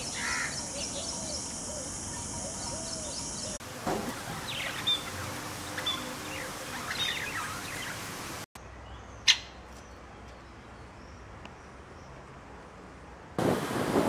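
A string of short animal clips. First, bird calls over a steady high hiss. Then budgerigars chirp and warble for about five seconds, followed by a quieter stretch with one sharp click. Near the end comes a louder wash of wind and surf on a beach.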